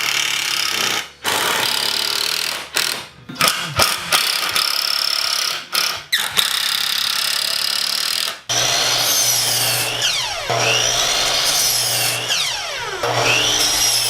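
Power tool working 2x4 lumber, running in bursts that stop and start several times, with background music, which carries a steady low hum and gliding whines in the second half.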